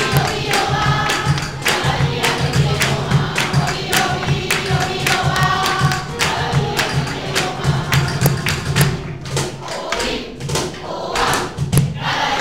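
Mixed choir singing together, accompanied by steady rhythmic hand-clapping.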